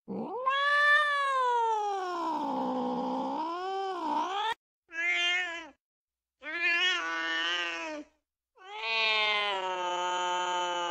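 Domestic cat caterwauling, the yowling call of cats mating: a long wavering wail of about four seconds that dips and rises in pitch, then two shorter yowls, then another long wail that runs on past the end.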